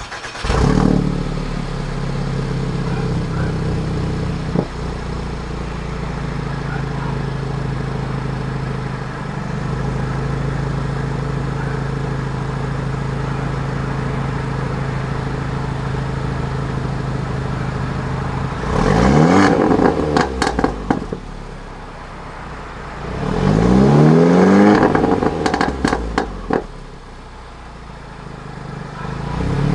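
Turbocharged four-cylinder engine of a Mercedes-Benz CLA250 with a Stage 2 tune, downpipe and Armytrix cat-back exhaust. It starts with a flare about half a second in and then idles steadily. Later it is revved twice, each rev ending in a quick run of crackles and pops as it falls back, and a third rev begins near the end.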